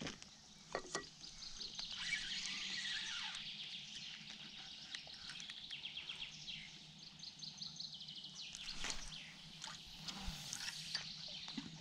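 Faint outdoor ambience of small birds singing, with rapid chirps and trills, and a few light clicks and rustles from fishing tackle being handled.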